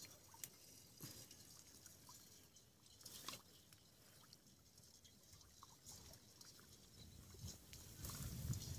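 Faint trickling and small splashes of water as hands grope through shallow muddy water and into a bank for fish and crabs, with a few soft ticks. A low rumble rises near the end.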